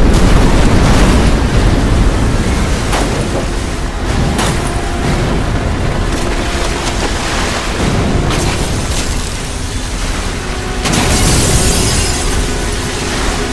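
Film sound effects of a tsunami surging through city streets: loud rushing, crashing water with deep booms, and a fresh hissing surge of spray near the end, over a music score.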